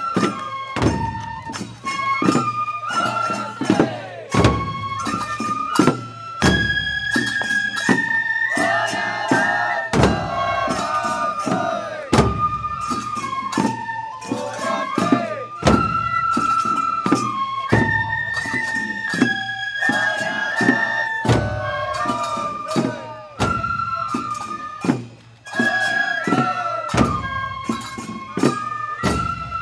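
Japanese festival hayashi: a flute playing a melody of held, stepping notes over repeated taiko drum strikes.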